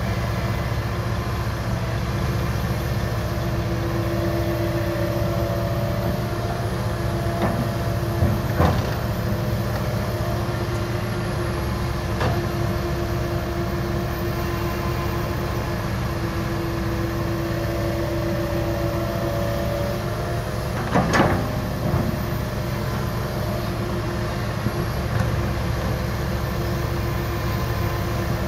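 Komatsu PC160LC excavator's diesel engine running steadily while it loads soil into a dump truck. A hum swells and fades several times, and a few sharp knocks come through, the loudest about two-thirds of the way in.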